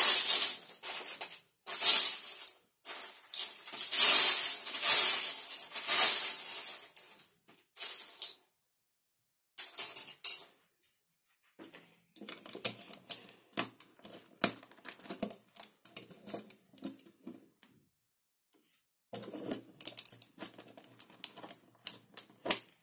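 Plastic LEGO bricks rattling loudly for the first several seconds as pieces are rummaged through, then a long run of small clicks and taps as bricks are handled and pressed onto a model.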